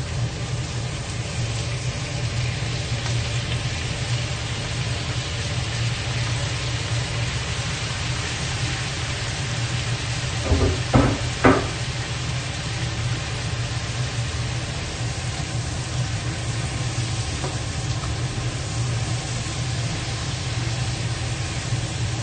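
Diced tomatoes sizzling in a stainless steel wok with frying pork belly, garlic and onion: a steady frying hiss over a low hum. Three quick knocks come about halfway through.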